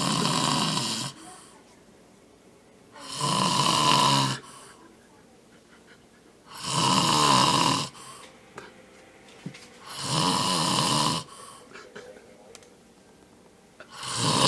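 A man snoring in his sleep: five loud snores, each a little over a second long, coming about every three and a half seconds.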